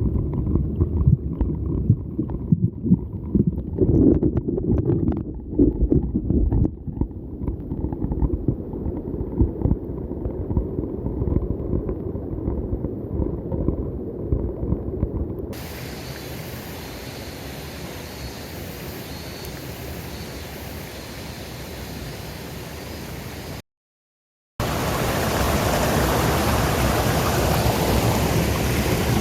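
A muffled low rumble with irregular knocks for about the first half. Then, after a cut, comes the steady rush of a mountain stream, which is louder after a second brief break near the end.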